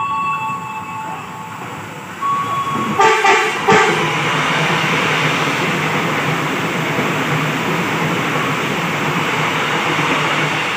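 Airport rail link electric train (Kereta Bandara) sounding two short horn blasts about three seconds in as it approaches, then running through the station with a steady rumble of wheels and motors.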